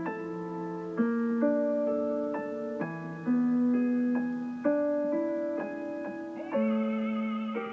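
Slow piano music: sustained chords, with a new one struck every second or two.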